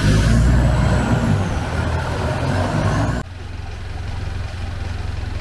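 Canal boat's engine running with a steady low drone as the boat travels along the canal. About three seconds in, it cuts suddenly to a quieter, even engine drone.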